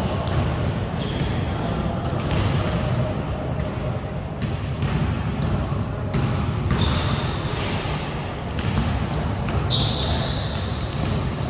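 A basketball bouncing on a wooden-style indoor court, with many sharp knocks of ball and footfalls and brief high squeaks of sneakers on the floor near the seven- and ten-second marks, all ringing in the echo of a large gym hall.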